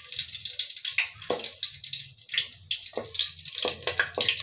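Bay leaves and dried red chillies sizzling and crackling unevenly in hot mustard oil in an aluminium pot, the first tempering of the spices.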